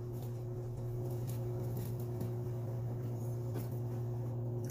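A steady low hum with a few faint soft clicks from chewing.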